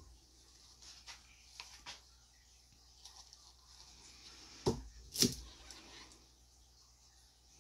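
Plastic paint cups being handled: a few light taps, then two sharper knocks about half a second apart, about two-thirds of the way through.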